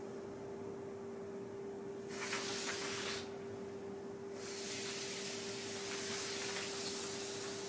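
Charcoal and sleeved arms sweeping across a large sheet of paper: a brief scraping hiss about two seconds in, then a longer one from about halfway on, over a steady hum.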